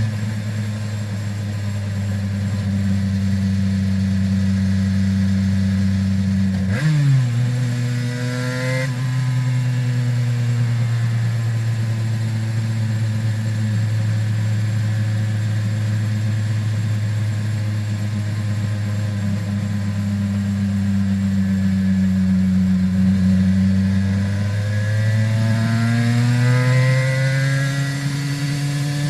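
Aprilia RS 250's two-stroke 90° V-twin running through Arrow exhausts while being ridden, holding steady revs, then jumping sharply up about seven seconds in. It settles again and climbs steadily over the last few seconds.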